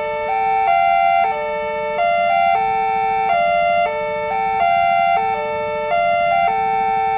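Electronic warning chime of a railway level crossing, playing a short tune of clear notes at several pitches that loops over and over, while the crossing signals are active.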